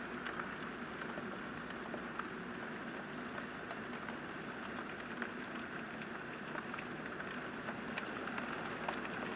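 Steady rain: many small raindrop ticks pattering over a constant hiss.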